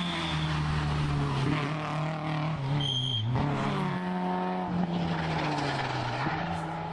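Rally car engine pulling hard as the car approaches and passes close by. Its note dips sharply about three seconds in, with a brief high tyre squeal, then climbs and falls away as the car drives off.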